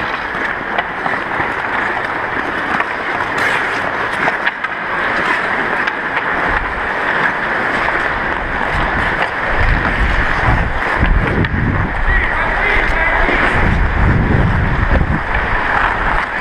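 Ice skate blades scraping and carving on rink ice, with the low rumble of wind buffeting the worn camera's microphone, which builds from about six seconds in as the skater gathers speed.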